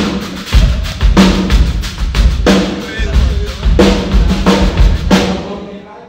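Rock drum kit played in a steady beat: kick drum and snare hits with cymbal wash, a heavy hit about every two-thirds of a second. It fades away near the end.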